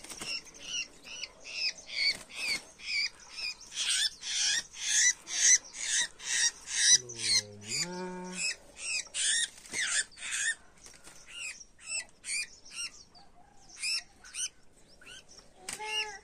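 Red-whiskered bulbul giving harsh squawking distress calls in quick succession, about two to three a second, as it is handled after capture; the calls thin out over the last few seconds. A short low pitched call comes about halfway through.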